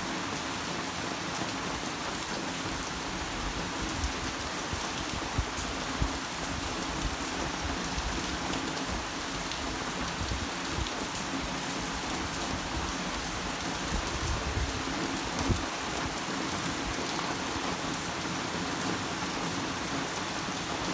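Heavy typhoon rain pouring steadily onto surfaces, with a few brief thuds and sharper drops standing out here and there.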